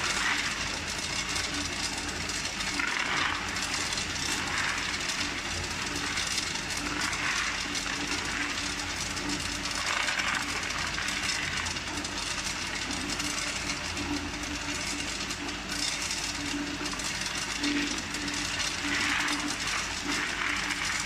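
Clear tube ice clattering out of a tube ice machine's discharge chute into a plastic basin during the harvest cycle, a dense rattle of falling ice that swells every couple of seconds. A steady hum from the running machine sits underneath.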